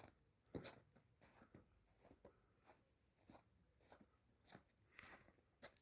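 Faint crunching footsteps, about one step every half to two-thirds of a second.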